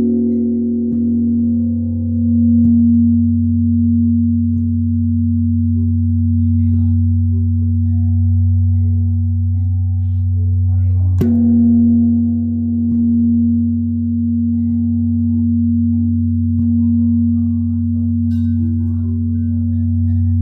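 Large bell rung by striking, ringing on from a stroke just before and struck again about halfway through. Each stroke leaves a long deep hum that swells and fades in slow waves.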